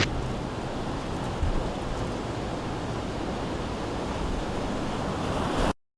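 Blizzard wind blowing hard across the microphone: a steady, rushing roar that cuts off suddenly near the end.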